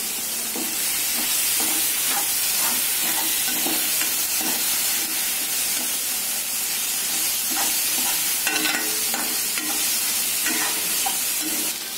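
Chopped onion, tomato and green chilli frying in oil in a metal pan with a steady sizzle, while a metal spoon stirs and scrapes against the pan in short, irregular strokes. The vegetables are being sautéed until soft with masala powder.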